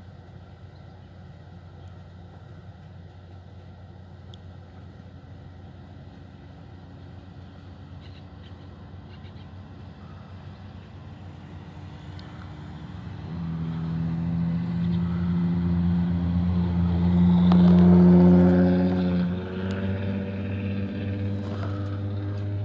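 A motor vehicle's engine, running steadily and faintly at first. About halfway through it grows much louder, is loudest a few seconds before the end, then holds steady.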